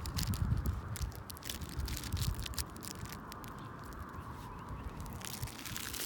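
A Doberman puppy mouthing and tugging at a fabric toy on grass. Soft rustling and scattered small clicks sit over a low rumble that is louder in the first half.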